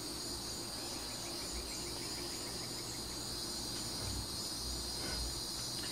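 Steady high-pitched chorus of crickets and other insects, with a faint rapid chirping in the first couple of seconds and a few soft low bumps.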